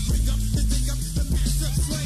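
Hip hop track: rapping over a drum beat with a deep, repeating bassline.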